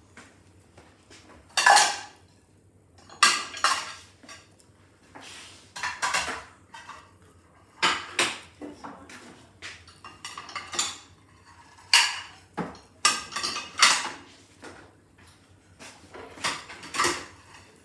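Dishes and cutlery clinking and clattering as they are handled and stacked into a dishwasher, in irregular knocks about every second.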